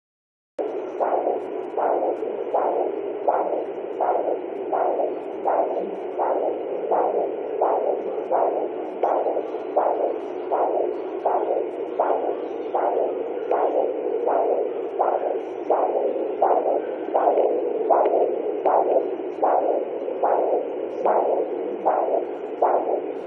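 Handheld fetal Doppler picking up a heartbeat at 10 weeks 4 days of pregnancy: an even, rapid train of whooshing pulses, a little under two a second, over a steady hiss, starting about half a second in.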